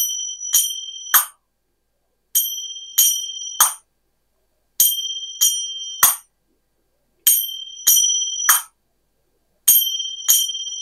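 A pair of kartal hand cymbals played in the open-open-close pattern: two struck strokes that ring on, then a third stroke that closes the cymbals and cuts the ringing short, then a one-beat rest. The three-stroke group repeats evenly about every two and a half seconds.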